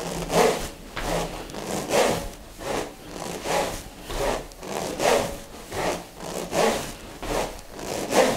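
A pair of smovey vibration rings swung back and forth, the steel balls inside the spiral hoses rolling round with a rushing swish on every swing, a little more than one swing a second.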